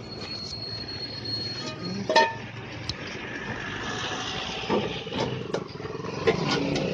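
Steel plates and a serving spoon clinking as poha is dished out, the loudest clatter about two seconds in and several lighter clinks later, over road traffic with a passing vehicle engine.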